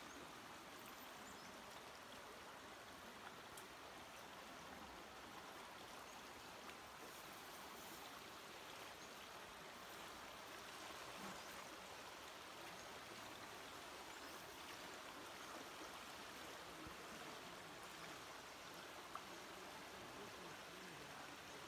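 Faint, steady rushing of a forest creek flowing over rocks.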